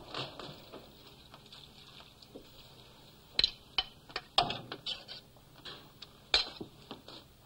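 Scattered clinks and knocks of cookware and dishes being handled at a stove. There are a few sharp clatters, the loudest about three and a half, four and a half, and six and a half seconds in.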